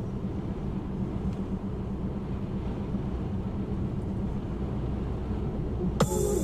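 Steady low road and engine rumble of a vehicle cruising on a motorway, heard from inside the vehicle. Music starts again near the end.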